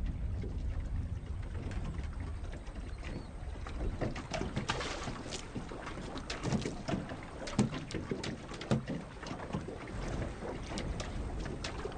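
Water splashing and sloshing over a low steady rumble, with irregular sharp splashes from about a third of the way in.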